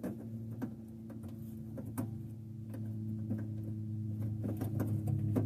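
Scattered small clicks and taps of headlight bulb wiring and plastic parts being handled and pushed into place, over a steady low hum.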